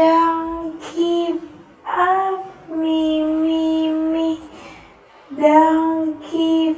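A high voice singing "me" over and over on long held notes of about the same pitch, with a short upward slide about two seconds in.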